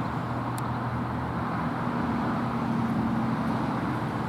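Steady road-traffic rumble with a low vehicle engine hum that shifts up in pitch partway through, then fades.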